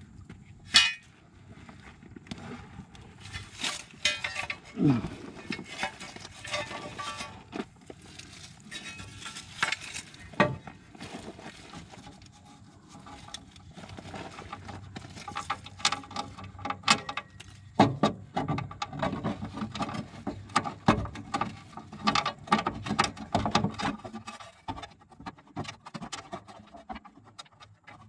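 Irregular clinks, knocks and scrapes of metal as a deflector plate is refitted by hand up under a Husqvarna riding mower's cutting deck, thinning out near the end.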